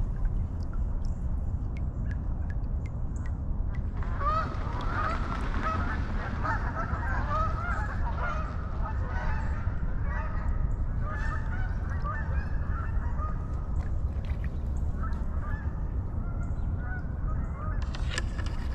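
A flock of geese honking: many overlapping calls start about four seconds in and run on, thinning and then rising again near the end, over a steady low rumble.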